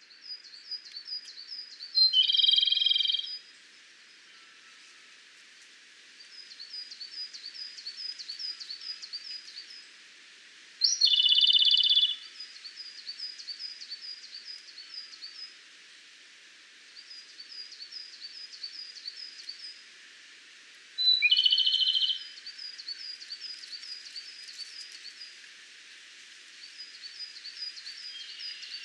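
Japanese robin (Larvivora akahige) singing: three loud song phrases about nine to ten seconds apart, each a high introductory note followed by a trill. Between the phrases, faint quick chirps repeat several times a second over a steady hiss.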